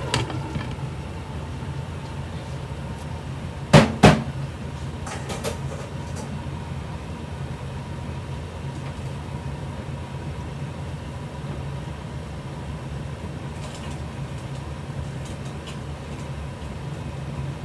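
Glass pot lid being set down on a metal pot, giving two sharp clacks about four seconds in and a few lighter clicks after, over a steady low hum.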